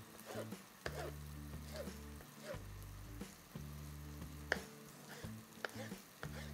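Chef's knife chopping bell peppers on a plastic cutting board: irregular, unhurried taps as the pieces are diced.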